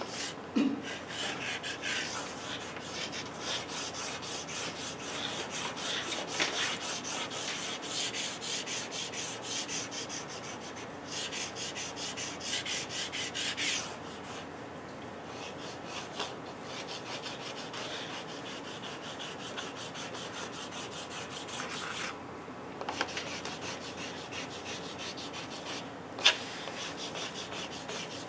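Pastel stick scratching across paper on a drawing board in quick, repeated hatching strokes. The strokes grow softer for a stretch in the middle, and a single sharp tap stands out near the end.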